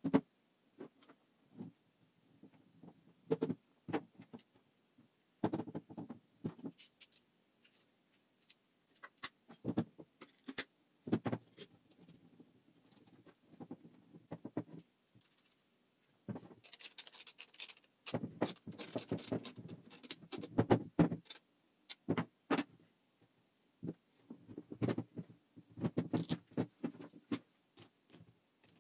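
Hand assembly of a wooden clamp: painted wooden parts knocking on the workbench and steel bolts, washers and nuts clinking as they are fitted. The sounds come as scattered separate clicks and knocks, with a busier spell of rattling metal handling about two-thirds of the way through.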